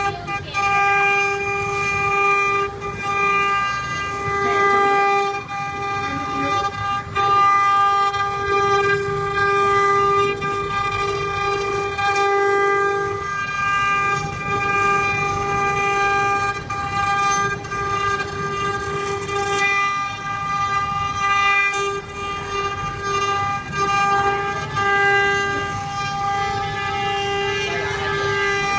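CNC wood-carving router's spindle running with a steady high-pitched whine, its loudness wavering slightly.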